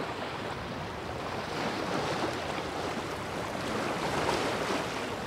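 Water rushing and splashing along the hull of a sailboat under sail, an even wash that grows a little louder about a second and a half in.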